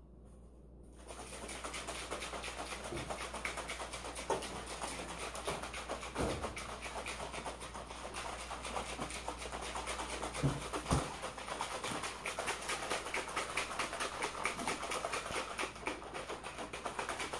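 A plastic shaker cup being shaken hard and fast, its contents rattling and sloshing in a steady rapid rhythm that starts about a second in.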